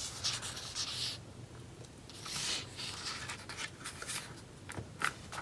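Faint rustling and rubbing of paper as a slim paper planner is handled, with a few light ticks near the end.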